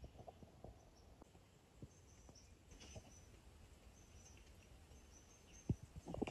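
Faint natural ambience with small birds giving short, high chirps now and then, and a few soft knocks, the loudest a sharp one near the end.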